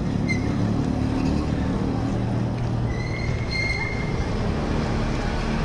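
Steady road and wind noise on the move, with a vehicle engine's low hum. A thin high squeal comes in about three seconds in and lasts about a second.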